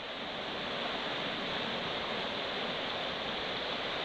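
Whitewater of a river rapid rushing around a kayak, a steady, even rush of churning water.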